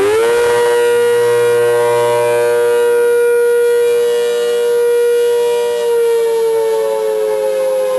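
ACA Hurricane 130 outdoor warning siren, a Roots-blower-driven siren, sounding a loud tone with many overtones. Its pitch rises quickly at the start, holds steady, then begins slowly falling about six seconds in.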